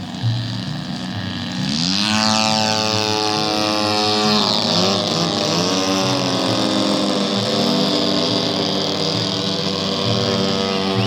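Small engine of a radio-control model airplane running low, then throttling up sharply about two seconds in, its pitch rising. It then holds at high revs, with slight rises and dips in pitch.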